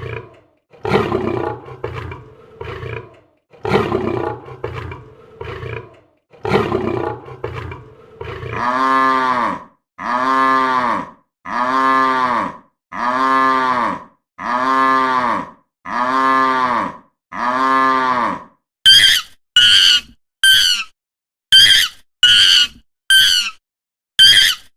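Several animal calls in turn: first a large animal roaring in short, rough bursts; then about seven long calls repeated one after another, each rising and then falling in pitch; then about eight short, high-pitched calls near the end.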